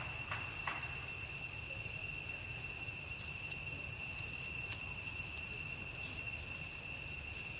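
Steady chorus of insects: several high, unbroken shrill tones at different pitches, over a low steady rumble, with two brief faint chirps about half a second in.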